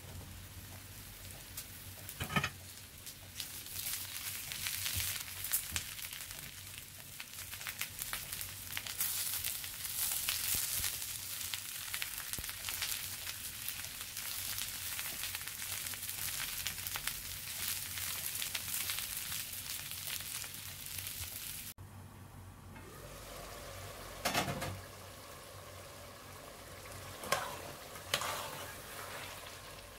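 Potato, carrot and green-pepper pieces frying in oil in a pan: a dense sizzle full of crackles, with a knock about two seconds in. About three-quarters of the way through it cuts off abruptly to a quieter pot of beef stew being stirred with a metal ladle, with a few knocks of the ladle against the pot.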